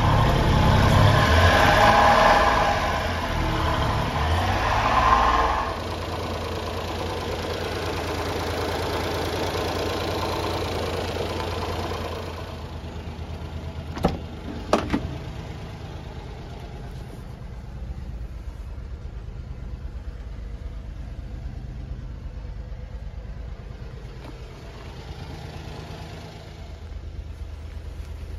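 Honda Acty kei truck's small three-cylinder engine idling, loud and close beneath the truck for the first several seconds, then a steadier, quieter hum. About 14 seconds in, two sharp clicks as the door handle is pulled and the latch opens.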